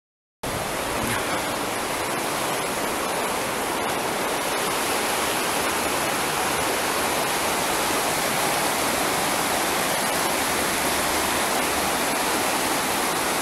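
Fast-flowing river rushing through a stone bridge arch: a steady, loud rush of water that starts abruptly about half a second in.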